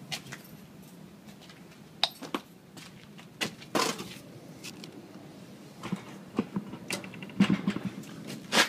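Handling noise: irregular clicks, knocks and rustles with light metallic clinks, as hand tools and the phone are moved about, with a denser run of knocks near the end.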